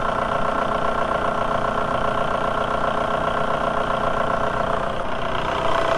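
1.9 L ALH TDI four-cylinder diesel engine idling steadily while it warms up after a coolant refill.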